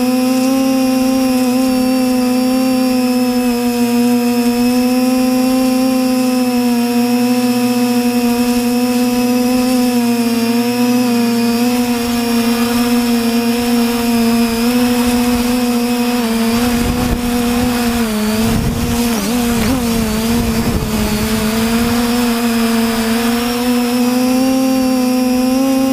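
TBS Discovery quadcopter's electric motors and propellers whining steadily from close by on the airframe. About two-thirds of the way through, the pitch dips and wavers for a few seconds under a rougher rushing noise.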